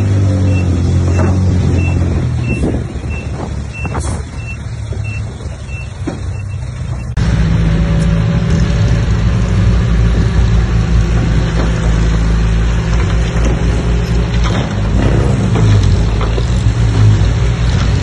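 Heavy diesel engines of bulldozers at work, their pitch rising and falling under load, with a reversing alarm beeping about twice a second for the first few seconds. About seven seconds in, the sound changes abruptly to a louder, steady engine.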